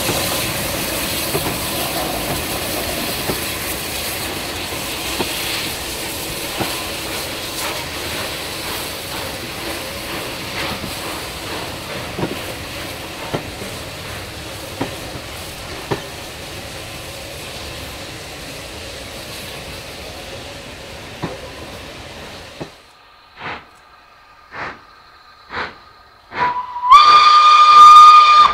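Steam locomotive 34092 City of Wells, a Bulleid West Country class Pacific, hauls its train away: a steady noise of exhaust, steam hiss and running gear fades as it recedes. After an abrupt cut, an approaching steam locomotive's exhaust beats come about a second apart. Near the end it sounds one loud whistle blast that steps up slightly in pitch as it opens fully.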